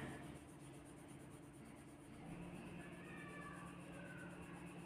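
Faint scratching of a colouring pen shading in a drawing on paper, over a steady low hum.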